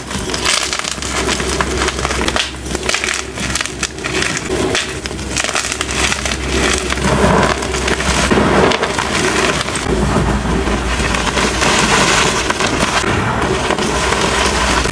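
Hands crushing blocks of dyed gym chalk, with continuous crunching and crackling as the blocks crack and crumble into powder.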